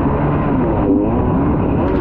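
Kawasaki 650SX stand-up jet ski's two-stroke twin engine running hard, with water and wind noise. About halfway through, the revs dip and climb back as it rides the chop.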